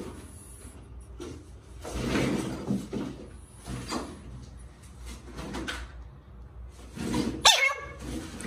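Rustling and squishing as raw fish is handled by hand, then a short, loud squealing cry about seven and a half seconds in.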